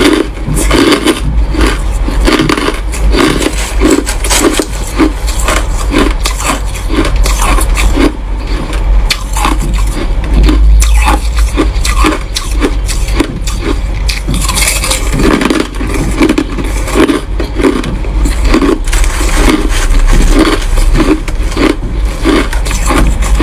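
Crushed white ice being chewed, a steady run of crisp crunches about two a second.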